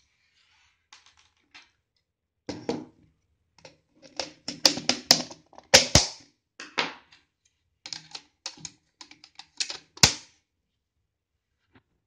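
Hard plastic clicking and knocking as a modular wall socket is handled and pressed into its cover plate. The clicks come in an irregular clatter, with sharp snaps about six seconds in and again about ten seconds in.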